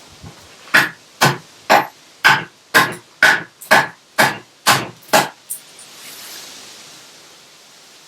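Axe blows hewing a wooden log to cut away rot, about two strikes a second, ten in a row, stopping about five seconds in.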